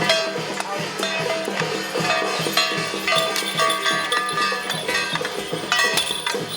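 Music with a steady, fast drumbeat, about four beats a second, under a held melody and sharp percussive clicks.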